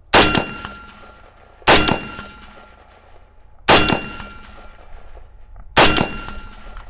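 Four single shots from an M16A2-type AR-15 rifle fired from the prone position, one about every two seconds, each a sharp crack followed by a short ringing echo.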